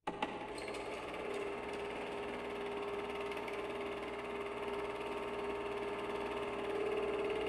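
A machine running with a steady hum and a constant mid-pitched tone, cutting in suddenly with a few clicks in the first second or so.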